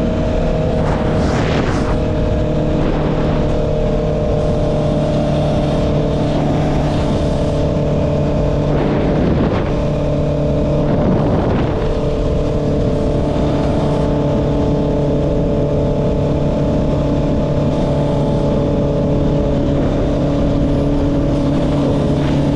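Honda CB650R's inline-four engine through an Akrapovic exhaust, running under way at a fairly steady speed. Its pitch shifts a little a few times, with a few brief whooshes in between.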